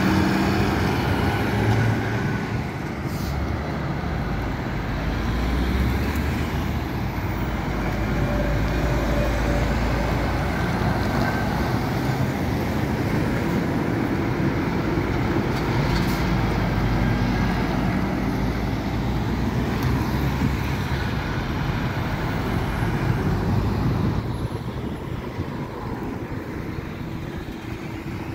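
Road traffic with heavy diesel articulated trucks and cars passing, a steady low engine rumble that gets quieter near the end.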